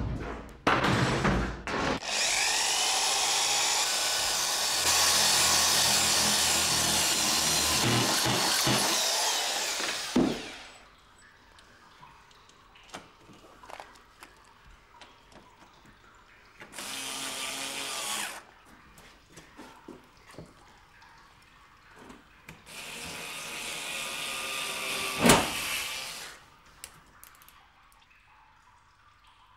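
Power drill driving screws into aluminium chequer plate, in three runs: a long one of about eight seconds, a short one of about a second and a half, and one of about three seconds with a sharp knock near its end.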